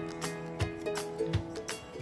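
Background music of plucked guitar notes, a slow melody with each note ringing on.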